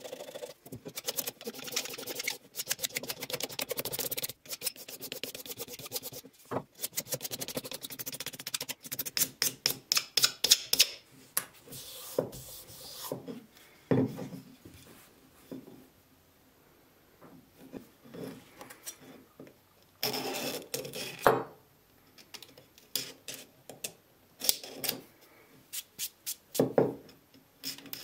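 Small steel scraper scraping old finish off the wooden body of an antique hand plane in runs of rapid short strokes, with pauses between runs. A single knock about halfway through.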